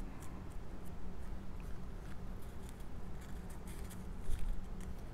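Soft, scattered rustles and light taps of cardstock cut-outs being picked up and handled on a table, over a faint steady low hum.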